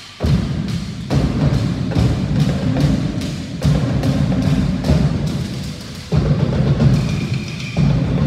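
Cook Islands drum ensemble playing a fast, driving rhythm, with sharp wooden knocks over deep drum beats. It comes in loudly just after the start, eases off, and picks up again with a fresh surge about six seconds in.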